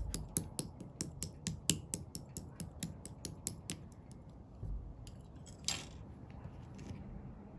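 Clear slime being pressed and squeezed by hand, giving a fast run of sharp clicks and pops, about five a second, that thin out after about four seconds, with one longer crackle a little later.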